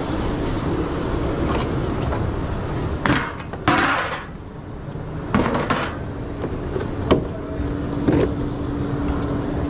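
Sharp knocks and clatter of dishes and kitchen gear being handled, about six in all, the loudest a short clatter about four seconds in, over a steady low rumble of kitchen machinery; a steady hum joins about halfway through.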